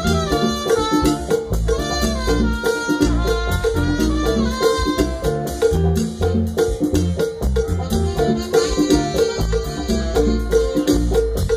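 A salsa orchestra playing live: an instrumental passage with horn lines over bass and a steady percussion beat.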